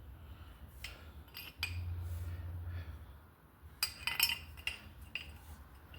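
Light metallic clinks and clicks of brake caliper parts and tools being handled, with a cluster of clinks about four seconds in. A low hum runs for about a second, starting about one and a half seconds in.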